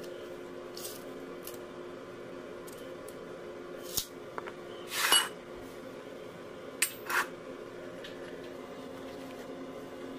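Steel wire being bent around the pin of a homemade hand-lever bending jig on a steel plate: scattered light metal clicks and clinks, the loudest a short ringing metal scrape about five seconds in. A steady low hum runs underneath.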